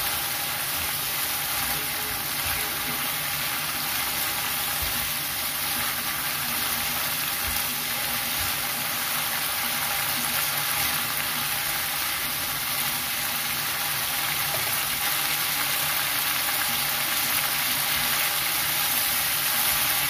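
Shrimp and petai in a yellow spice sauce sizzling steadily in a frying pan, stirred at times with a wooden spatula, over a faint steady hum.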